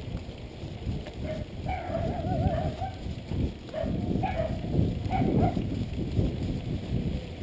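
Mountain bike rolling over a bumpy dirt trail, an uneven rumble of tyres and frame. A wavering squeal about two seconds in, with shorter ones near four and five seconds.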